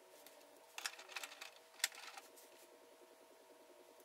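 A few light clicks and taps from screws and small mounting hardware being handled while a wall-mount bracket is fitted to the back of a TV, the sharpest about two seconds in, over faint room tone.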